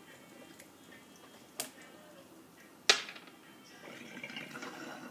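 A glass bong being hit: a faint click, then a loud sharp click about three seconds in, followed near the end by the bong water bubbling as smoke is drawn through it.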